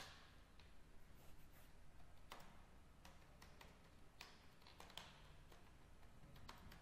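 Faint typing on a computer keyboard: short, irregular keystroke clicks over a low steady hum.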